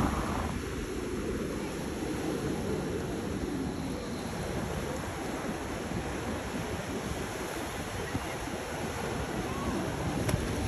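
Steady wash of sea water against a concrete seawall, with wind buffeting the microphone.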